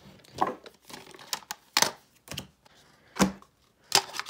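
Stiff printed album cards and card sleeves being handled and laid down on a table: several separate crisp rustles and light slaps, each brief.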